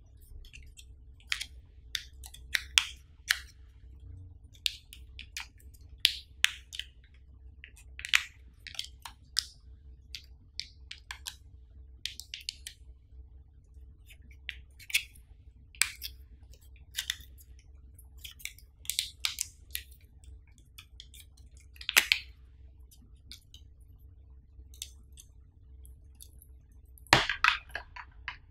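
Close handling of a smartphone's boxed accessories: a cable and earphones in plastic wrapping are unwrapped and turned in the hands. Short, irregular rustles, crinkles and small clicks come one after another, with one sharper crackle about two-thirds of the way in and a quick run of them near the end.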